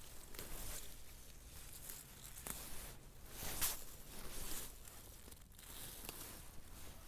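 Wild garlic plants rustling as flower stalks are pulled and torn off by hand, with several short tearing swells, the loudest about three and a half seconds in.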